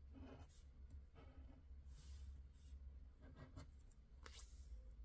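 Faint, short scrapes of a plastic scratcher tool on a scratch-off lottery ticket's coating, about five separate strokes, over a low steady hum.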